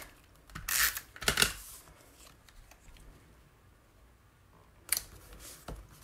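A tape runner drawn across card stock in short raspy strokes, two about a second in and two more near the end, with faint paper handling between.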